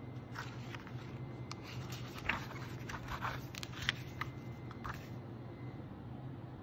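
Glossy booklet pages being handled and turned, a run of crisp crinkles and papery crackles lasting about five seconds, over a steady low hum.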